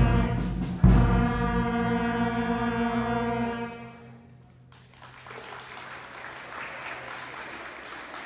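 A school concert band of brass, saxophones and woodwinds holds a final chord, punctuated by two drum strikes in the first second; the chord dies away about three and a half seconds in. After a brief hush, applause starts about five seconds in.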